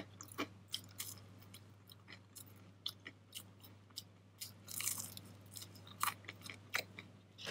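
Close-up chewing and biting into a crisp piece of battered fried fish, with scattered soft crunches and mouth clicks that come thicker about five seconds in.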